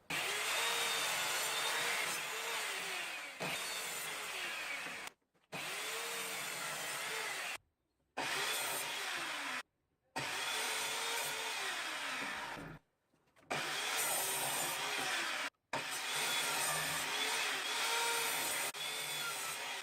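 Evolution R210CMS 1200 W mitre saw cutting timber in several short takes cut together, each stopping abruptly. The motor's whine rises and falls over and over as the blade bites into the wood and runs through it.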